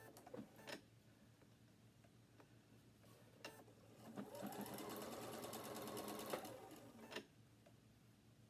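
Domestic sewing machine stitching a short run. It starts with a few light clicks, then a little past halfway the motor speeds up with a rising whine, runs steadily for about two seconds and stops suddenly, followed by one more click.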